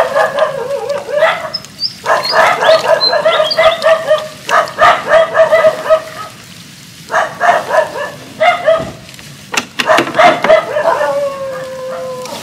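A pack of dogs barking at once in rapid, excited volleys with short pauses between them. Near the end one drawn-out cry falls slowly in pitch.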